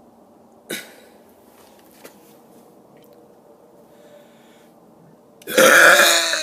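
A man's deliberate burp, loud, near the end, after a quiet stretch broken by a short click about a second in.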